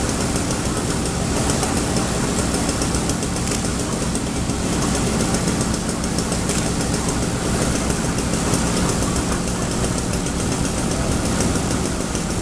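Fire engine's diesel engine running steadily at a constant speed, driving its pump to supply the hose lines.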